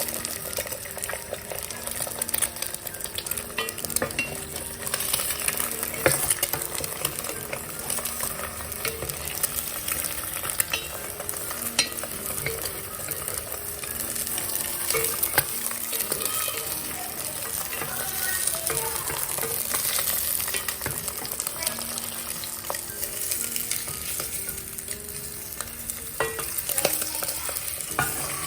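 Food frying in a pan: a steady sizzle and crackle, with a few sharp utensil clicks.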